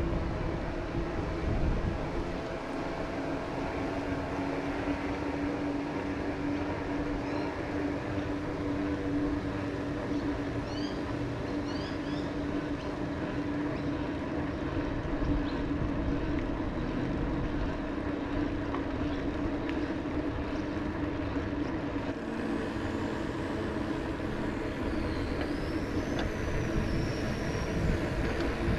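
Steady rolling noise of an electric mountain bike ride, tyres and a low mechanical hum that drops slightly in pitch about two-thirds of the way through. A few short high chirps come around the middle, and a higher gliding call near the end.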